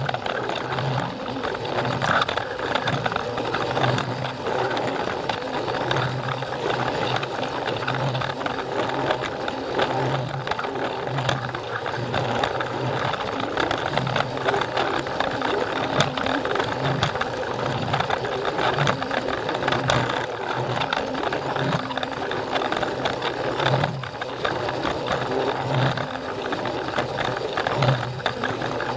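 Battery-powered Plarail toy train running along plastic track: its small motor and gears whirring steadily, with frequent light clicks and rattles as the wheels cross the track joints.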